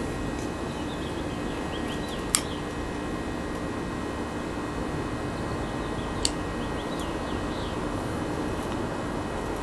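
Steady hum of a running home generator, with two sharp clicks about four seconds apart.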